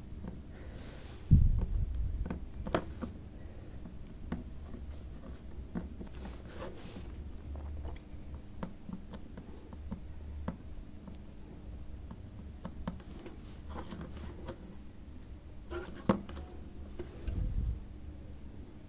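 Faint scattered clicks and taps of tools and a hard-disk circuit board being handled on a workbench during soldering, with a dull bump about a second in and a couple more near the end.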